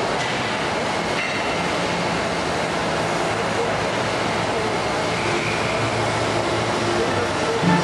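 Steady mechanical running noise, a continuous rumble with faint steady hum tones in it.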